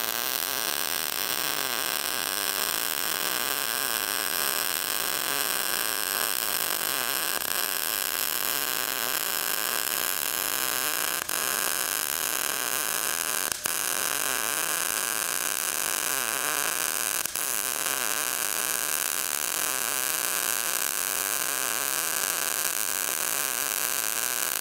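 MIG (gas metal arc) welding arc with .035 wire on an Everlast 221 set at 19 volts, running a weave pass on 6-inch schedule 40 pipe: a steady hiss, with a few short drops about 11, 13 and 17 seconds in.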